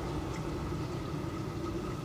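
Steady low rumbling hiss from a lidded pot of chicken curry simmering on a lit gas burner.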